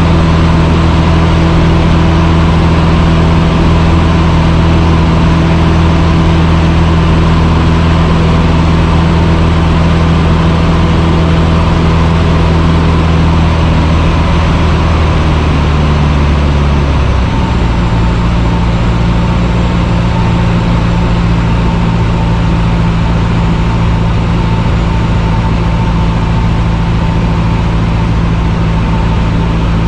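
Cessna 150's four-cylinder Continental O-200 engine and propeller running steadily in cruise, loud, as heard in the cockpit. A little over halfway through the engine note shifts to a new steady pitch, a change in power setting.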